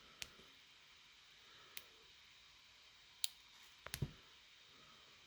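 Faint, scattered clicks of a lock pick working the stiff, tightly binding pins of a Burg Wächter padlock, about six in all, the loudest a close pair about four seconds in.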